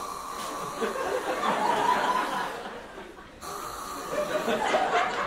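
A group of young actors laughing together in two bouts, with a short break about three seconds in.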